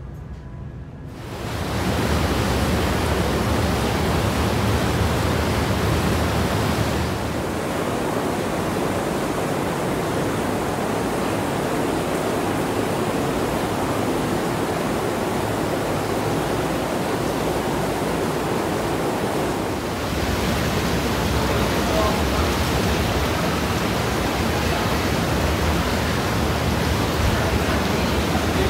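Hydrotherapy pool jets churning the water: a steady rushing, bubbling hiss that starts about a second in and dips and rises slightly in level twice.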